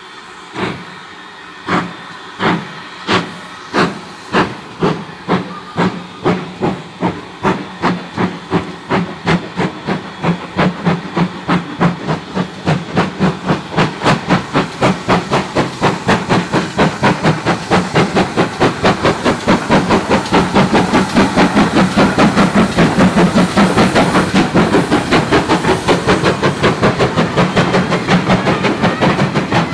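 GWR 5600 class 0-6-2 tank engine No. 6695 pulling away with a train, its two inside cylinders chuffing exhaust steam. The beats start slow and heavy, about one every two-thirds of a second, and quicken steadily into a rapid, even chuffing as the locomotive gathers speed.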